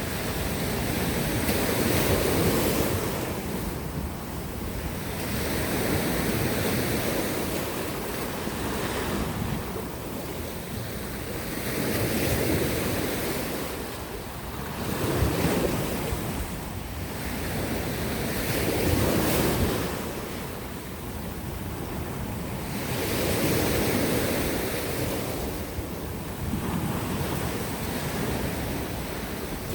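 Sea surf: waves breaking and washing ashore in slow surges, swelling and falling about once every three to four seconds.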